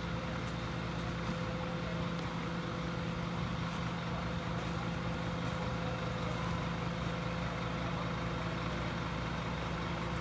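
Fire engines' engines running steadily, a continuous low drone with a steady hum.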